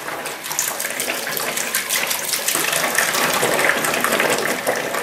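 Tap water running steadily into a sink while a paintbrush is washed with soap under the flow.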